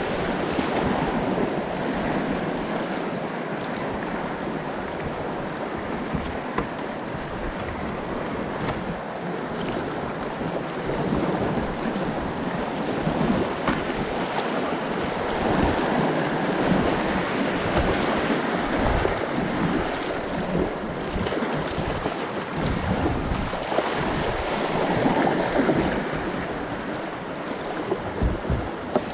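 Churning whitewater rushing and splashing around a kayak running a rapid, with wind buffeting the microphone in low gusts.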